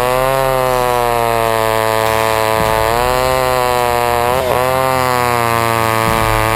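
Old Pioneer chainsaw with a 28-inch bar running loud and steady at full throttle, its pitch sagging briefly twice.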